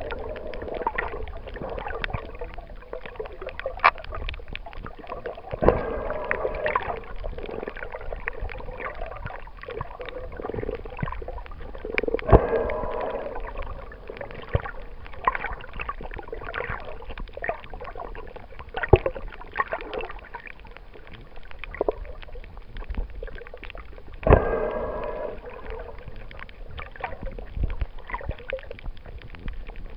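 Muffled underwater sound picked up by a snorkeler's camera below the surface: water gurgling and sloshing in swells every few seconds, with sharp clicks and knocks scattered through it.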